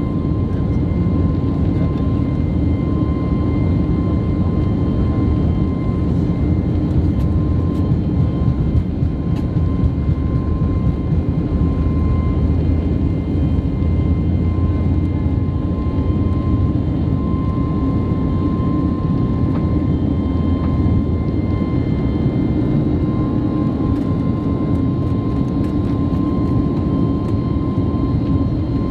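Steady in-cabin noise of an Airbus A321neo in flight: a constant low rush of airflow and jet engines, with a thin steady whine on top.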